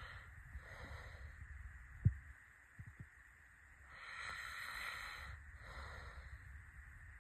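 A sleeping person snoring: slow, noisy breaths, a faint one about a second in and a long, louder one about four seconds in. A short low thump about two seconds in, followed by two fainter ones, is the loudest sound.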